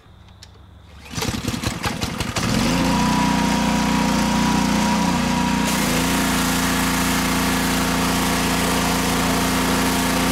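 A small gas engine, most likely a pressure washer's, starts about a second in with a quick run of pulses. It then settles into a steady run. A little past halfway its note shifts and a hiss comes in with it.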